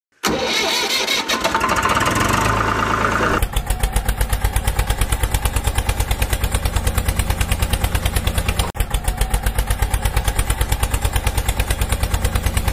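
Tractor-style engine sound: a start-up rush for about three seconds, then a fast, even chugging with a deep rumble and a brief dropout about nine seconds in.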